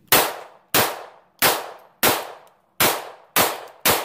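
Bersa Firestorm .380 pistol firing Freedom Munitions 100-grain remanufactured .380 rounds: seven shots in quick, even succession, about one every two-thirds of a second.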